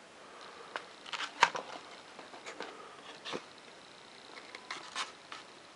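Foam-board model airplane parts being handled and moved: irregular light clicks and crackles of foam, the loudest about a second and a half in.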